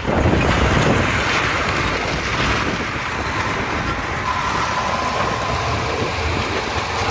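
White 4-210 tractor's engine running under heavy wind buffeting on the microphone, a steady loud rumble with no sharp crash impacts.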